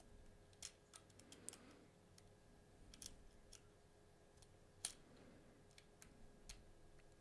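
Faint, irregular small clicks of a hook pick and tension tool working the pins inside a Bell Armoury 200 lock's cylinder during picking; the sharpest click comes nearly five seconds in.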